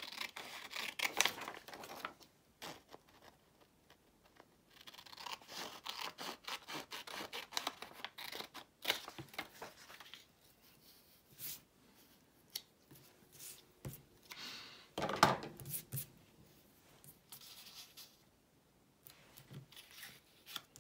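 Scissors cutting paper in several stretches of snips, with paper rustling and being handled in between; the loudest rustle comes about fifteen seconds in.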